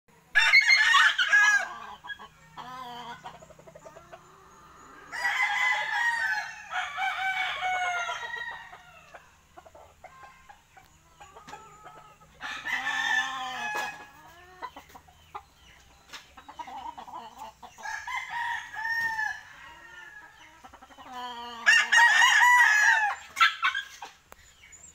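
Gamefowl rooster crowing about five times, every few seconds, with quieter clucking between the crows.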